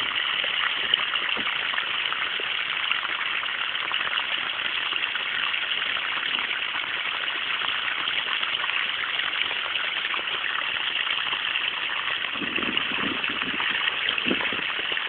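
Steady rush of running water watering a flooded taro patch.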